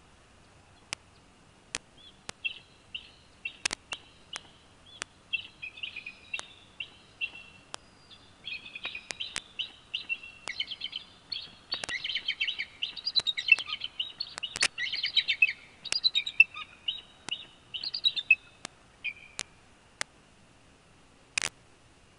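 Bald eagle giving high chittering calls: a run of quick repeated notes that grows louder and busier toward the middle and trails off near the end. Sharp clicks are scattered throughout.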